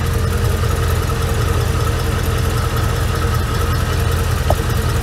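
Chevrolet Silverado pickup's engine running at a steady idle, heard from beneath the truck.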